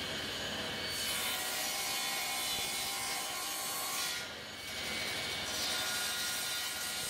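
Table saw running and cutting plywood in two passes: a hissing cut from about a second in to about four seconds, a short dip, then a second cut starting about a second and a half later. The plywood frame piece is being trimmed close to the line.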